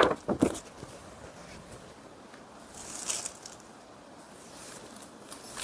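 Rustling as a folded brasso-print saree is unfolded and spread out by hand, in short bursts at the start and again about three seconds in.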